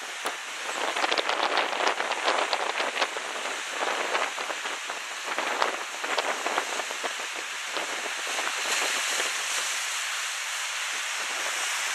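Sea washing against rocks: a steady hiss of surf and spray, with a run of crackling splashes between about one and five seconds in.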